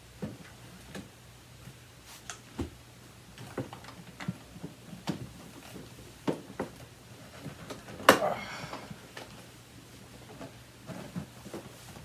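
Cloth wiping and rubbing over the plastic housing of a Bernina 6100 upright vacuum cleaner, with scattered light knocks and clicks as hands and cloth bump the body, and one louder knock about eight seconds in.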